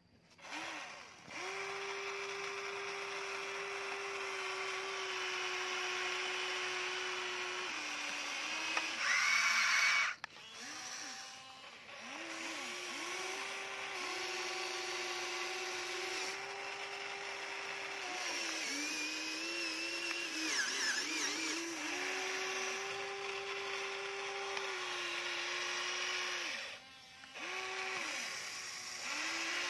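Small electric motors of a Huina radio-controlled toy excavator whine steadily as the boom, arm and bucket work. The pitch rises as each motor starts and falls as it stops, over and over, with a couple of brief pauses.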